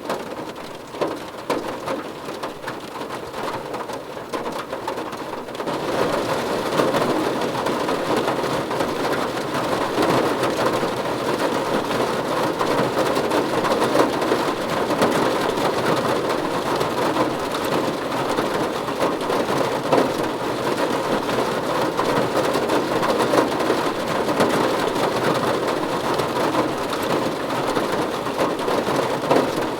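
Rain falling on a car, heard from inside the cabin: a dense patter of drops on the body that is lighter, with single taps standing out, for the first few seconds, then turns heavier and steadier from about six seconds in.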